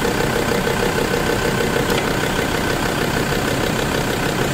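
An engine idling steadily, an even drone with a fine rhythmic pulse.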